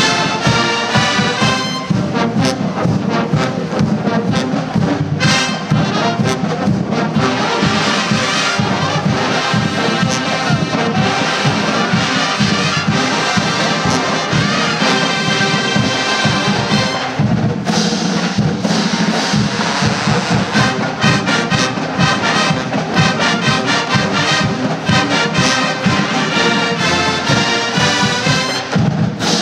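A full college marching band plays loud brass-heavy music, with sousaphones, trumpets and trombones over a steady drum beat.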